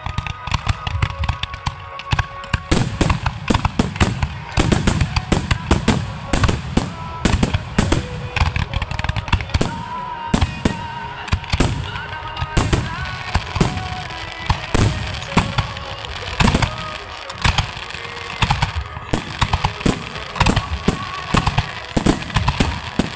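Fireworks display going off: a rapid barrage of shell bursts, several bangs a second with crackling, growing denser about two seconds in. Music plays underneath.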